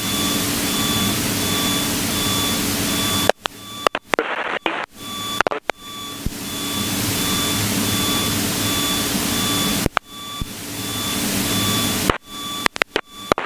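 Piper PA-32's engine and cabin noise heard through the intercom as a steady hiss with a low hum, cutting out abruptly several times. A faint beep pulses evenly behind it.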